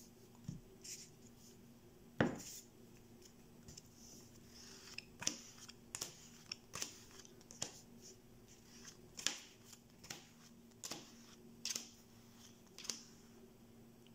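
Neapolitan playing cards being dealt one by one onto a cloth-covered table: a string of faint, irregular card snaps and taps over a steady low hum.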